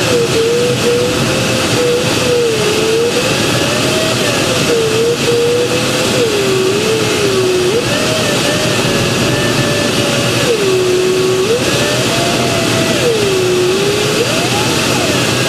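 A glider's audio variometer tone wanders up and down in pitch, rising as the glider meets lifting air and dropping in sink. Under it is a steady, loud rush of airflow over the cockpit canopy.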